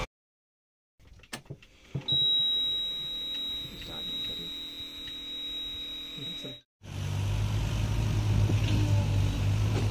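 Inside a JCB backhoe loader's cab, a few clicks, then a steady high-pitched beep from the dashboard lasting about four and a half seconds. After a break, a diesel engine runs steadily with a strong low hum.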